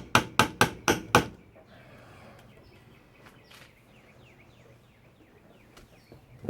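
Hammer driving small nails into wood: five quick blows at about four a second, stopping about a second and a half in, then only faint small sounds.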